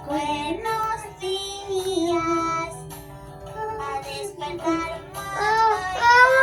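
Music: a song with a high singing voice carrying the melody throughout.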